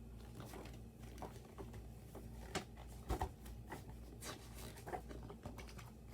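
Pages of a picture book being handled and turned: soft paper rustles and light taps, with a louder thump about three seconds in.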